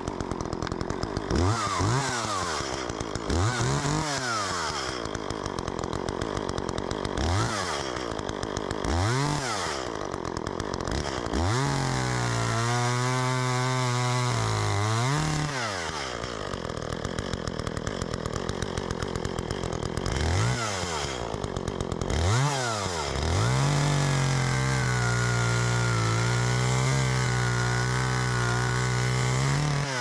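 Chainsaw revving up and dropping back several times, then held at full speed while it cuts through a tulip poplar trunk, once for a few seconds near the middle and again through the last quarter, as the fallen tree is bucked into logs.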